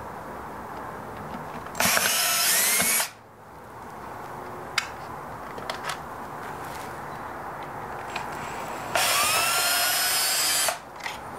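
Cordless drill/driver with a Phillips bit backing out small screws from a coffee grinder's plastic gearbox housing. It runs twice, briefly and then for about two seconds, its motor whine rising in pitch as it spins up. A few light clicks come in between.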